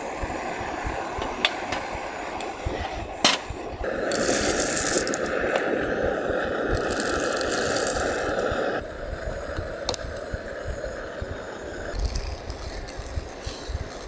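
Holzklotz Epic hand coffee grinder grinding coffee beans as its handle is turned: a continuous crunching, rattling grind with a few sharp clicks, louder for several seconds in the middle.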